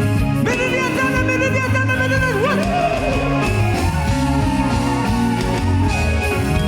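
Gospel praise music with guitar over a steady bass accompaniment, carrying long held melody notes: one bends down and up at its end, and a second is held near the end.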